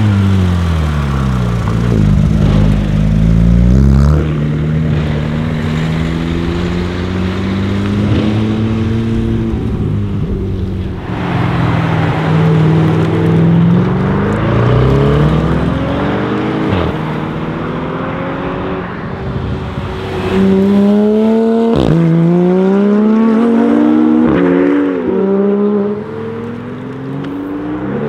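High-performance car engines accelerating hard, one car after another. Each engine's pitch climbs, then drops at a gear change and climbs again, with a few sharp exhaust cracks on the shifts.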